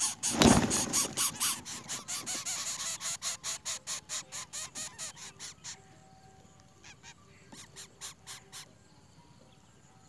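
Greater coucal nestling begging with fast, harsh repeated calls, about six a second, which thin out after about six seconds and stop near the end. A loud rustling thump comes about half a second in, in the nest.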